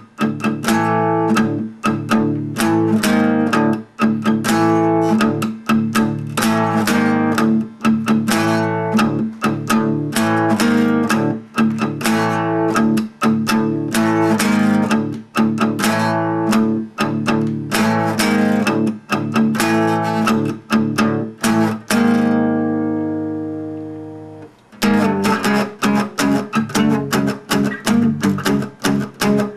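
Music: a guitar playing fast, repeated plucked notes. Near the end it stops on a held chord that dies away, then starts again.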